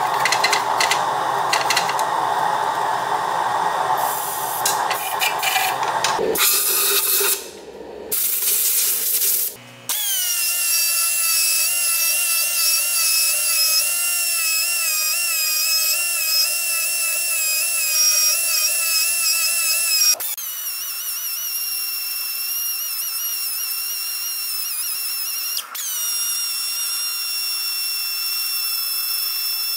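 High-speed die grinder with a carbide burr cutting cast aluminum on an intake manifold: a steady high whine whose pitch wavers as the burr bites, breaking off abruptly twice. Before it, for the first several seconds, a loud broad rushing noise.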